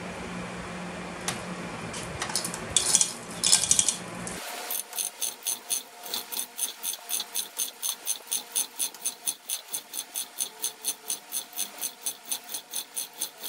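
A few metal clanks over a steady hum, then about four seconds in a hand chain hoist's ratchet starts clicking evenly, about four clicks a second, as its hand chain is pulled.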